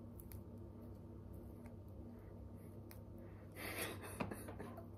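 Faint crackle of dried cannabis buds being crumbled between the fingers, over a low steady hum. A short breathy laugh comes about three and a half seconds in, the loudest sound here.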